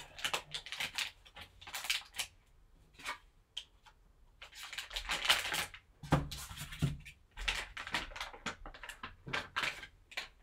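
Foil card pack crinkling and rustling as it is handled and opened, with irregular clicks and taps of hard plastic card cases handled and set down on a table.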